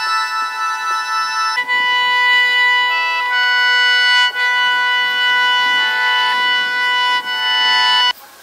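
Bamboo panpipes playing long held notes, several sounding together, the pitches shifting about one and a half seconds in; the playing stops suddenly near the end.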